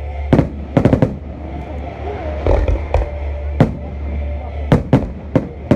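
Fireworks display: aerial shells bursting in a string of about ten sharp bangs at irregular intervals, three in quick succession about a second in and another cluster near the end.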